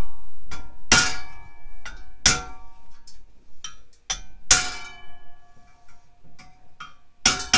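Hammer blows on a thin stainless steel dish clamped in a vise, the metal ringing briefly after each strike as its cut tabs are bent up into grinder blades. About ten irregular blows, the hardest about a second in, near two seconds, midway and near the end.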